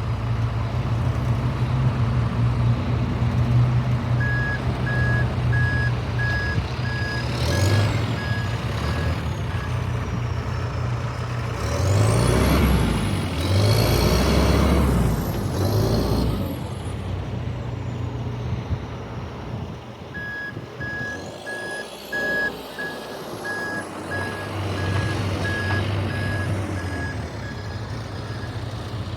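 John Deere 310L EP backhoe loader's diesel engine running. Its reverse alarm beeps steadily in two spells, and midway the engine revs up with a high whine that rises and falls.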